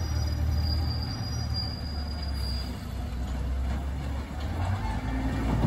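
Natural-gas engine of a Peterbilt 520 McNeilus rear-load garbage truck running with a steady low rumble as the truck pulls away down the alley. A faint high whine runs over it and stops about halfway.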